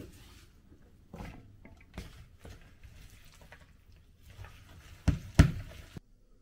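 A spatula stirring chopped green onions into wet egg batter in a glass bowl, with irregular scrapes and knocks against the glass. Two sharper, louder knocks come near the end, then the sound cuts off suddenly.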